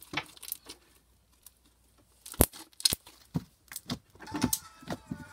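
Slime squeezed and kneaded by hand, giving a string of sharp, wet clicks and pops at irregular moments, with a quiet stretch in the first half.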